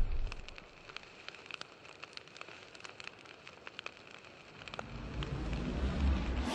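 Fire-crackle sound effect on an animated logo: sparse sharp crackles and pops over a faint hiss, then a low rumble swelling up from about five seconds in.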